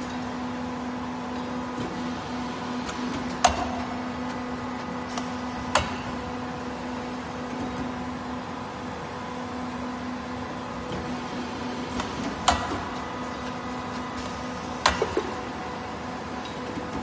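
Diamond segment cold press machine running with a steady hum from its drive, broken four times by a sharp metallic clack a few seconds apart as the press mechanism moves.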